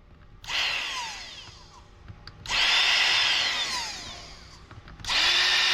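Battery-powered 21-volt mini chainsaw's electric motor triggered in three short bursts; each starts suddenly and winds down with a falling whine. It is being tested to see whether the drive gear, which had lost its lock on the motor shaft, now holds.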